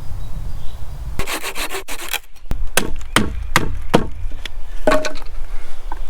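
Wood being cut by hand: a short run of quick rasping strokes, then a regular series of sharp strokes about two and a half a second.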